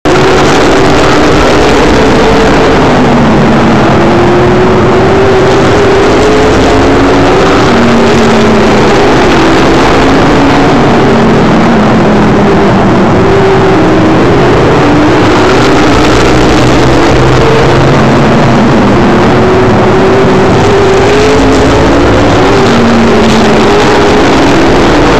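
Modified race cars' V8 engines running hard around an oval track, several at once, their pitch rising and falling as they accelerate and pass. Loud throughout.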